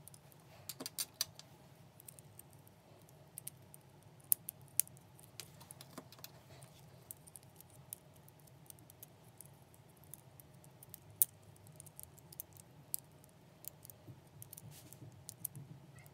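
Clear plastic 3D crystal puzzle pieces clicking and ticking against each other as they are handled and pressed together, an irregular scatter of small sharp clicks over a faint low hum.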